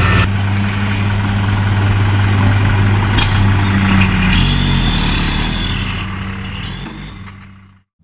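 Diesel engine of a Hino Dutro light dump truck running steadily while its bed is raised to tip soil. The engine note shifts about halfway through, and the sound fades out near the end.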